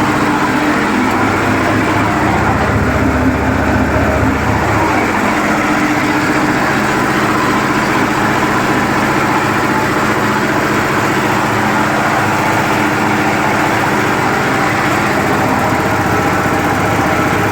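Yanmar TF 85 single-cylinder diesel engine running steadily, driving a belt-driven two-cylinder Meiji air compressor that is pumping up its tank. The low hum deepens for a few seconds early on, then settles.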